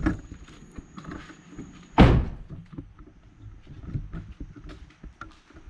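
A single heavy thunk about two seconds in, with lighter knocks and handling noises around it.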